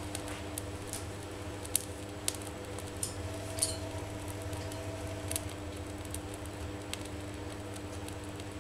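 Faint, irregular ticks and clicks over a steady low hum, as a model Stirling beam engine warms up over a spirit-burner flame before it starts running.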